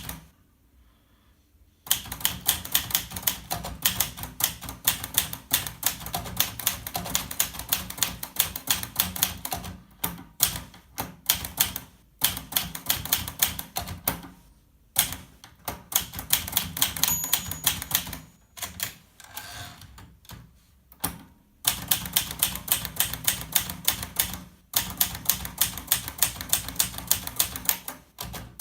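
Olivetti Valentine portable typewriter being typed on: runs of sharp keystrikes, several a second, broken by short pauses. The typing starts about two seconds in.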